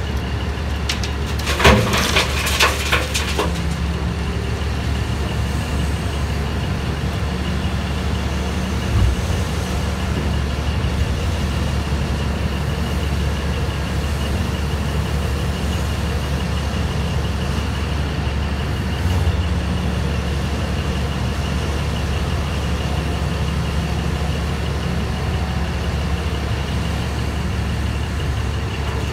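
Diesel engines of a Terex RH170 hydraulic front shovel and a Terex TR100 haul truck running steadily, with a low drone and a steady high whine. About two seconds in, a loud clatter of rock and earth crashes into the truck's steel dump body as the shovel's bucket empties.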